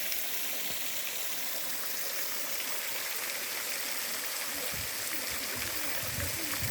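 Steady rush of water falling and flowing at a small waterfall. A low rumble joins in about two-thirds of the way through.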